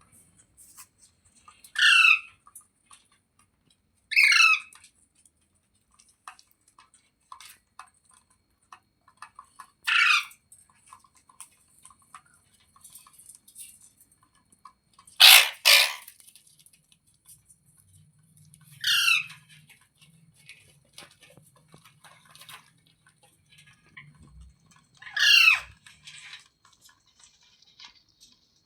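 Indian ringneck parrot calling loudly: seven short calls at uneven gaps, two of them close together about halfway through, with faint clicks in between.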